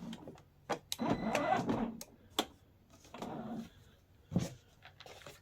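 The 12V ride-on quad's electric drive motor and gearbox whirring in two short runs, one of about a second and a shorter one, with sharp clicks in between, as it is tested driving forward and backward.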